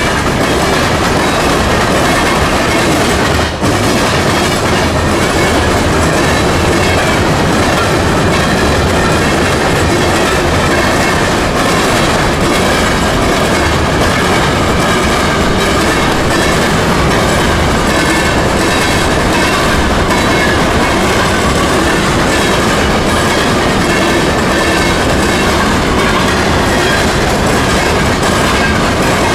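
Rock hopper cars of a freight train rolling over a railroad diamond crossing, their wheels hammering across the flange gaps in a loud, continuous fast clatter of impacts.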